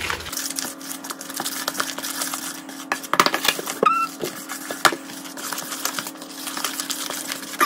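A wooden spoon stirring and scraping thick brownie batter in a plastic mixing bowl, sped up, so it comes out as rapid clicking and clattering over a steady hum. There is a brief high chirp about four seconds in.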